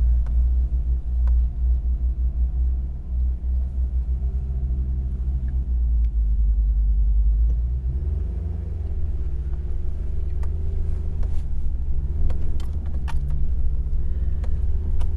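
Hummer H3's engine running with a low rumble as it crawls a rough off-road trail, its note rising about eight seconds in. Scattered knocks and rattles from the body jolting over rocks and bumps, more of them near the end.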